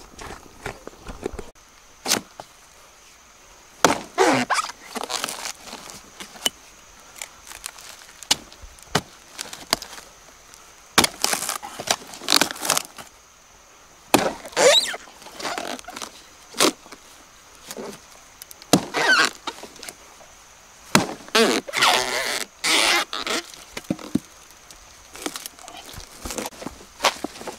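Machete blows chopping into a rotten palm trunk, with crackling as the soft, fibrous wood is split and torn apart by hand. The blows come irregularly, a few seconds apart.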